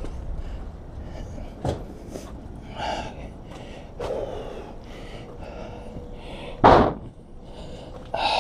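A man breathing heavily in short, hissing breaths while he works. There is a small knock about two seconds in, and a loud sharp thump or slam a little over two-thirds of the way through.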